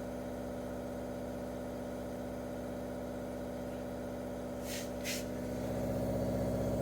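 Waterdrop G3P800 reverse-osmosis filter's booster pump running with a steady hum, two quick high clicks about five seconds in, and a slight rise in level near the end.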